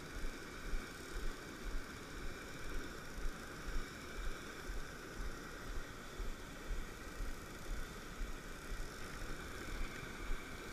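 Mountain stream tumbling over a small cascade into a pool: a steady rushing of water, with repeated low thumps on the microphone about twice a second.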